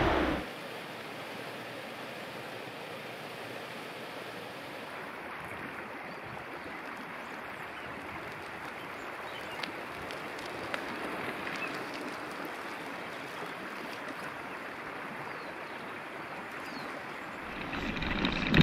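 Steady rushing of running water, like a stream. Near the end, louder wind rumble on a handlebar-mounted microphone takes over as the bike rides.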